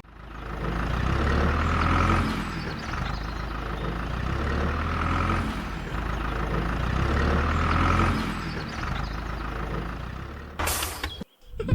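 Truck engine running, swelling and easing about every three seconds, with a short sharp hiss like an air brake release near the end.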